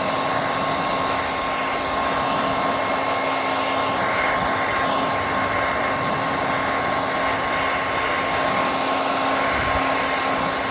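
Electric blow dryer running steadily on a purse to dry it, a continuous rushing of air with a faint steady whine.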